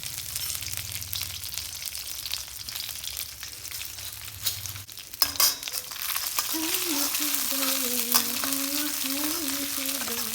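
Pounded dried anchovies frying in hot oil, sizzling steadily, with the clicks of stirring in the pan; the sizzle grows louder about five seconds in.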